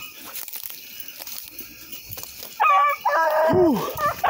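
Rabbit-hunting hounds baying on a running rabbit, several overlapping loud calls starting about two and a half seconds in, one dropping in pitch, after a quieter stretch with faint rustling.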